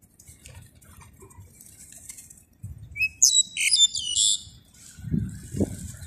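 Black-collared starlings giving a loud burst of harsh, chattering calls about three seconds in, lasting about a second and a half. Low rumbling noise follows near the end.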